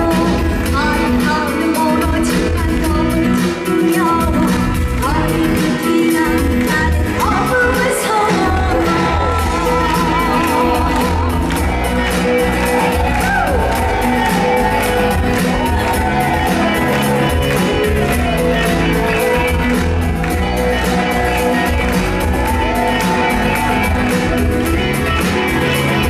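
A woman singing a pop song into a microphone over loud band accompaniment with a steady beat, amplified through a PA in a large hall.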